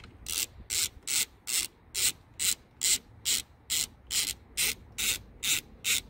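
Socket ratchet clicking in even strokes, about two and a half a second, as it spins out the loosened 16 mm steering-wheel bolt.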